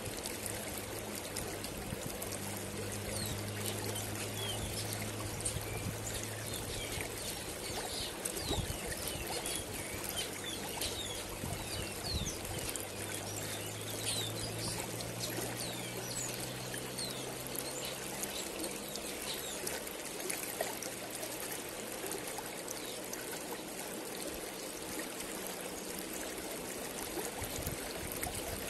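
Shallow river running over rocks: a steady rush of flowing water, with many short bird chirps scattered through it. A faint low hum sits underneath and fades out about two-thirds of the way through.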